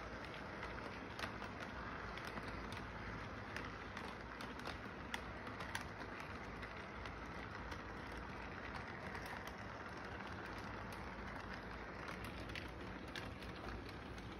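Model train running along its track: a steady rumble with irregular sharp clicks, typical of wheels passing over the rail joints.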